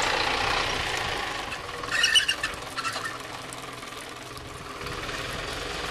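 A truck engine running in the background, with a brief cluster of high-pitched chirps about two seconds in.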